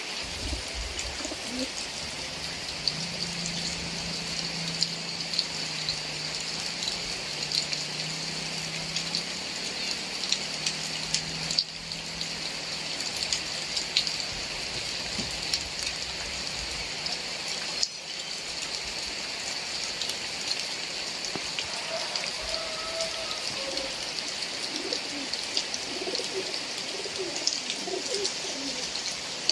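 Heavy rain falling steadily, a dense hiss of countless drops pattering and ticking on surfaces. A low, steady tone sounds under it for several seconds early on, and faint higher calls come near the end.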